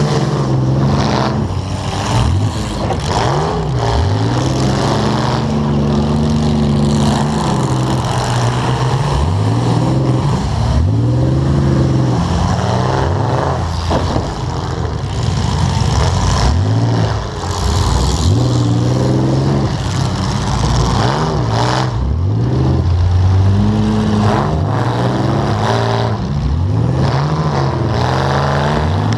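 Demolition derby car engine heard from on board, revved hard over and over, its pitch climbing and dropping every second or two, with a few sharp bangs of car-to-car impacts.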